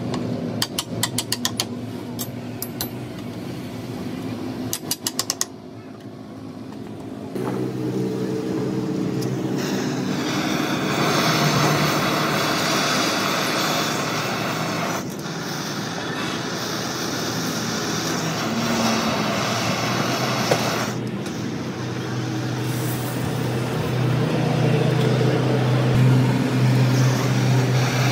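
Quick knocks of a tool tapping on a car radiator's metal tank, in two runs over the first five seconds. After about seven seconds a steady motor-like drone takes over and builds toward the end.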